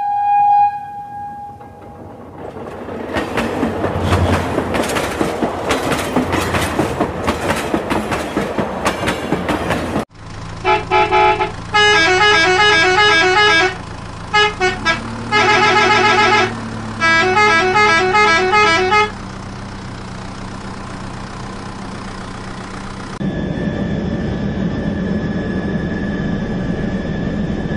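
Battery-powered toy sounds in sequence. A short horn toot, then several seconds of a toy train rattling and clattering around its plastic track. Then an electronic beeping tune plays over a steady motor hum, and near the end a steady buzzing motor runs.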